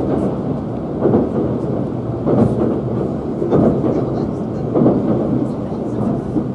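Running noise heard inside a Tobu 500 series Revaty limited express train at speed: a steady rumble of wheels on rail that swells and eases about once a second.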